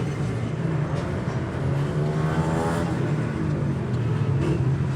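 Motor vehicle engine running with a steady low hum; a pitched engine note swells and shifts briefly around the middle.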